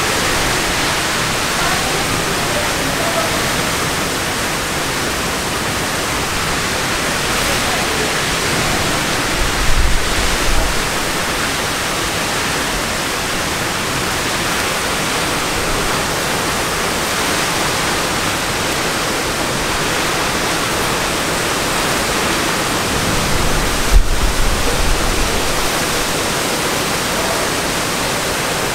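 Torrential rain pouring down in a steady, dense hiss. Two brief low rumbles break through, one about ten seconds in and another some fourteen seconds later.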